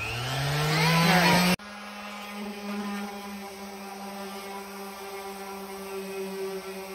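A rising whine ends in an abrupt cut about a second and a half in. Then an electric orbital sander runs at a steady pitch against the pine boards of a headboard, sanding the face smooth.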